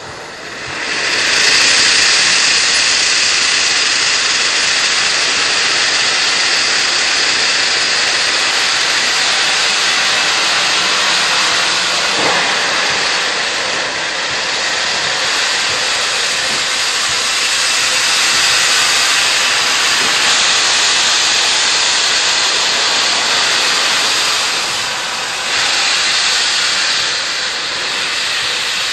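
Nickel Plate Road 2-8-4 Berkshire steam locomotive venting steam: a loud, steady hiss that comes on about a second in, with a short dip near the end.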